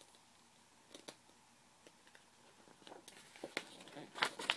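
A picture-book page being turned by hand: paper rustling and handling noise. It starts with a couple of faint clicks, then a cluster of crisp rustles builds in the last second and a half and is loudest near the end.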